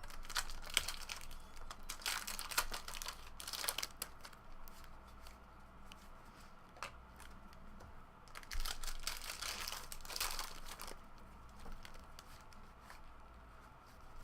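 Trading card pack wrappers being torn open and crinkled, with the rustle of cards handled, in bouts during the first four seconds and again from about eight to eleven seconds in.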